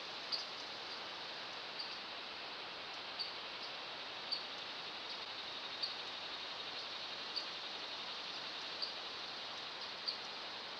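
A short, high chirp call repeating about every second and a half over a steady hiss.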